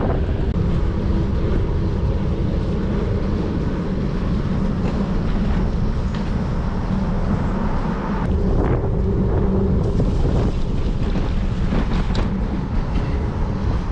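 Wind rushing steadily over the microphone while riding a bicycle, with low rumble from the tyres on the pavement.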